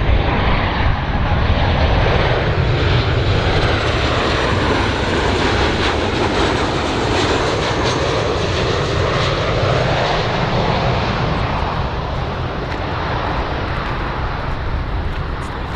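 Boeing 737-800 BBJ2 jet airliner on approach to land, its two CFM56 turbofan engines making a loud, steady rush of jet noise with a faint high whine that rises and falls. The noise eases a little near the end.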